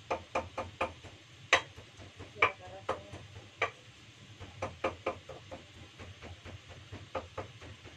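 Kitchen utensils knocking and clinking irregularly against a dish while food is worked by hand, with two louder knocks about one and a half and two and a half seconds in.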